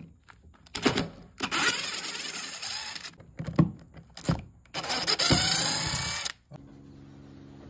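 Cordless DeWalt drill-driver running in two bursts of about a second and a half each, with knocks from the bit and pedal between them.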